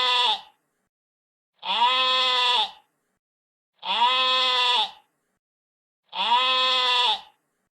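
A sheep bleating: one ending just after the start, then three more evenly spaced about two seconds apart. Each bleat is about a second long, with silence between them.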